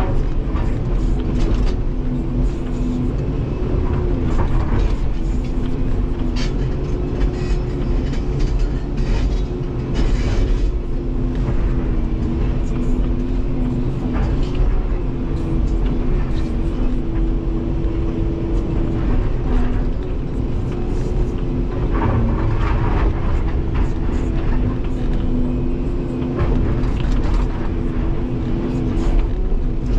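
Volvo 235EL excavator running under load, heard from inside the cab: a steady engine and hydraulic drone whose pitch shifts slightly as the boom and bucket work. Now and then stone and crushed rock clatter in and off the bucket.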